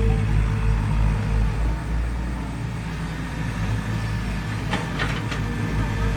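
An engine running steadily with a low drone, with a few sharp clicks or knocks about five seconds in.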